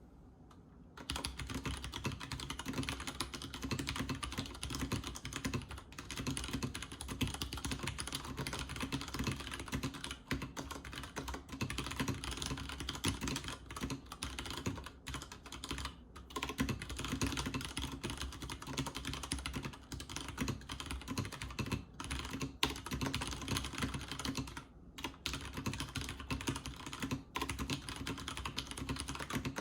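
Continuous fast typing on a Leopold FC900R PD mechanical keyboard with Cherry MX switches and PBT keycaps: a dense clatter of keystrokes starting about a second in, broken by a few brief pauses.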